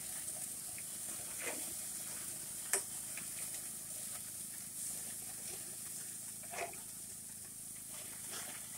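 Hamburger patties sizzling steadily on a hot gas grill, with a few short clinks and scrapes of a metal spatula against the grate.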